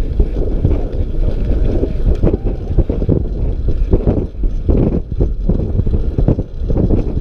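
Wind buffeting a GoPro 4's microphone as a track bike is ridden fast: a loud, irregular low rumble that surges and dips.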